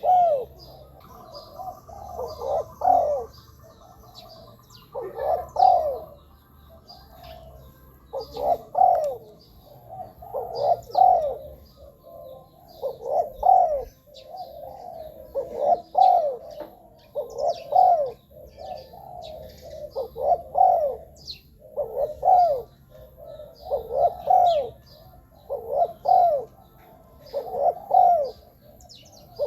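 Spotted dove cooing: a short phrase of rolling coos, repeated about every two seconds. Small birds chirp faintly and high above it.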